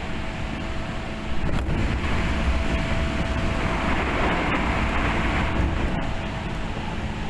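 Running sound of a Tokyu 8500 series electric train, heard inside the car: a steady rumble of wheels on rail with a faint steady hum, growing louder about a second in, with a few sharp clicks.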